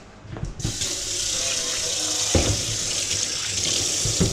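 Kitchen tap running briefly in a steady hiss, turned on about half a second in and off at the end, with a couple of dull knocks under the flow.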